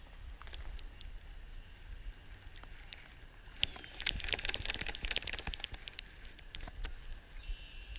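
Spinning fishing reel clicking rapidly for about a second and a half, starting about four seconds in, among scattered ticks and knocks of handling the rod and reel.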